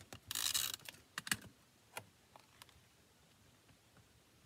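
Paper-crafting handling sounds: a short rustle of cardstock, then a few light, separate clicks and taps as a snowman panel is pressed onto a folded cardstock card base.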